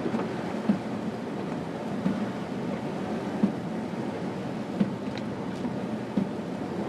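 Car cabin noise while driving slowly on a snow-covered road: a steady rumble of tyres and engine, with a few brief knocks.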